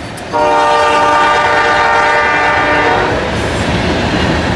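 CSX freight train's locomotive horn sounding one long chord for about three seconds, then the steady rumble of freight cars rolling by on the rails.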